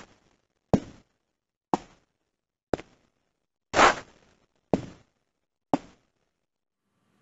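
Single footsteps synthesized by a surface-conditioned WaveGAN, one about every second, each generated for a different floor surface (concrete, gravel, carpet, wood). Each is a short impact with a brief tail; the gravel step about four seconds in is longer and noisier than the others.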